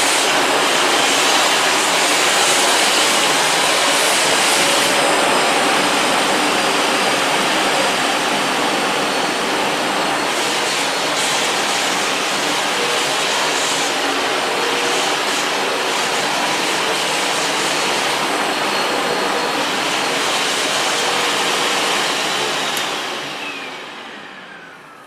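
Sebo Felix upright vacuum cleaner running steadily on a lowered suction setting as its combination nozzle sweeps coffee grounds off a vinyl floor. Near the end the motor is switched off and winds down with a falling whine.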